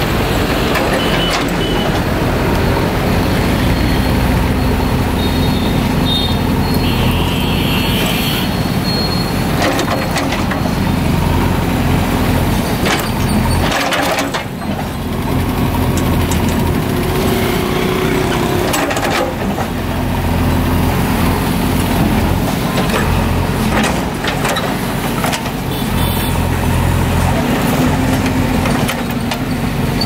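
JCB 3DX ECO backhoe loader's diesel engine running hard as the backhoe arm pushes against the base of a big tree, its note swelling and easing with the load, with a few knocks along the way.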